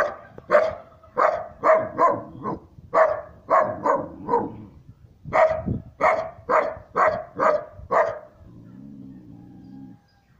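A three-month-old Siberian husky puppy barking in two quick runs of sharp, high barks, with a short pause between them: alarm barking at an unfamiliar person.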